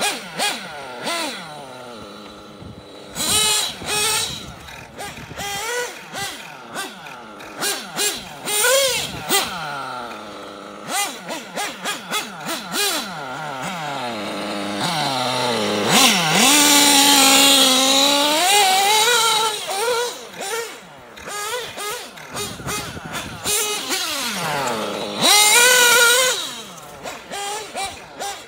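Kyosho Inferno MP9 1/8 nitro buggy's Reds R5R glow engine, freshly broken in and tuned, revving up and down as the buggy accelerates, brakes and passes. Its loudest moment is a long full-throttle run a little past the middle, followed by another short loud burst near the end.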